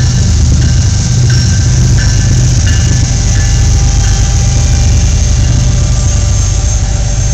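Diesel locomotives of a coal train passing close under power, a GE Evolution-series (GEVO) unit and then an EMD SD70MAC, with a loud steady low engine drone. Through the first half a bell-like ding repeats at an even pace, about three times every two seconds.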